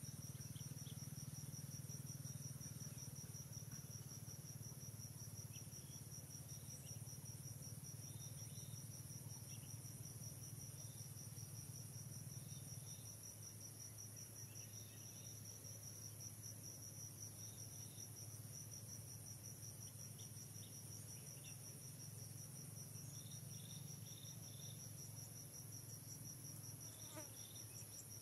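Insect chorus: a steady, high-pitched pulsing trill that runs on without a break, over a faint low hum, with a few faint short chirps scattered through it.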